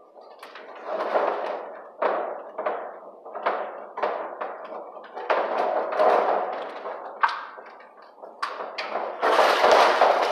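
Irregular knocks, taps and scraping from electrical wires being handled and worked into a metal breaker panel, with a louder rustling scrape near the end.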